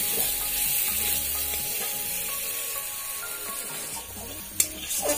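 Goat liver pieces frying and sizzling in masala in a metal kadai while a spatula stirs and scrapes them. This is the dry-sauté (kosha) stage before water is added. A single sharp click comes near the end.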